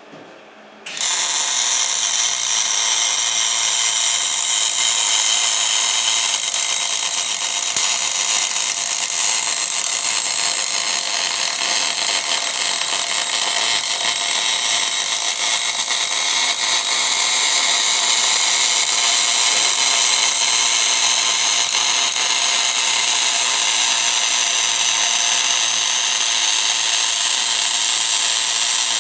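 MIG welding arc of an orbital bore-welding machine on cast iron, struck suddenly about a second in and then burning as a loud, steady hiss while the torch welds around the bore.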